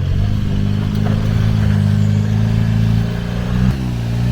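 A 4x4's engine running steadily at low speed, its note dropping suddenly about three and a half seconds in as it eases off.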